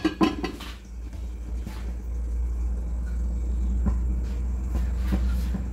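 Aluminium lid settling onto a cooking pot with a short clatter at the start, then a steady low rumble from the covered pot over a gas burner, with a few faint ticks.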